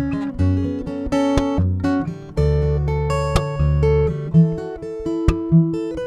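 Acoustic guitar heard through a Skysonic Pro-1 pickup: picked chords ringing over sustained bass notes that change about once a second.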